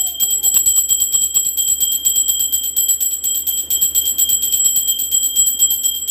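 Small brass puja hand bell (ghanti) rung rapidly and without pause, a steady high ringing made of many quick, even strikes a second.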